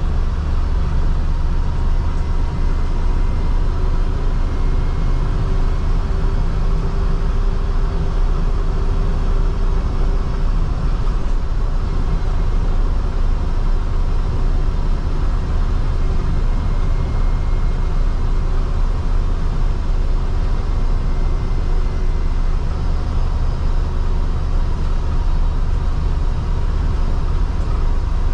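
Land Rover Defender 110's Rover V8 engine and road noise heard from inside the cabin while driving at a steady speed: a steady low drone.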